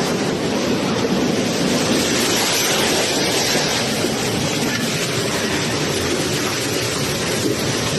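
Winds of an F3 tornado roaring around and through a house: a loud, dense, unbroken rush of noise.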